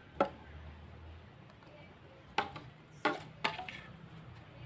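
Metal spoon clinking and scraping against a stainless-steel bowl as thick jam is scraped out. Four sharp clinks: one just after the start and three close together after about two and a half seconds.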